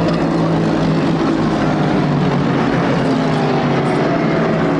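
Endurance racing cars' engines running at high revs at speed, a loud steady multi-toned engine note whose pitch drifts slightly.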